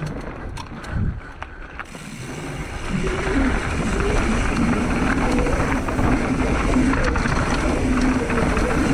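Mountain bike coasting down a trail: a few sharp ticks of the rear hub's freewheel ratchet in the first two seconds, then a louder steady rumble of riding over rough ground from about three seconds in.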